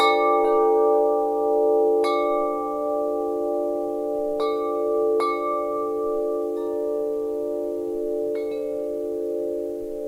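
Wind chimes ringing, with a fresh strike every second or two at uneven intervals and several low tones sustaining and overlapping throughout.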